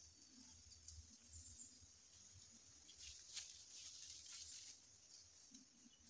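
Faint rustling and crackling of leaves and twigs in undergrowth, loudest about three to four and a half seconds in, over a steady high-pitched drone, with one brief high chirp about a second and a half in.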